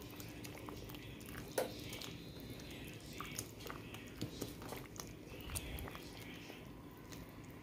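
A spatula stirring thick, creamy potato soup with sliced sausage in a cooking pot: soft wet squishing and scraping, with scattered light clicks and a sharper knock about a second and a half in.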